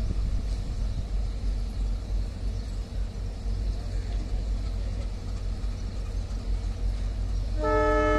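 Low steady rumble of an approaching passenger train, then near the end the locomotive's horn starts suddenly, a loud chord of several tones held on, as the train comes into the station.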